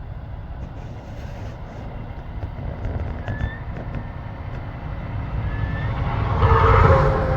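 A road vehicle, likely a truck, passing by. It swells to its loudest about six to seven seconds in over a steady low rumble, with a few faint short chirps from small birds.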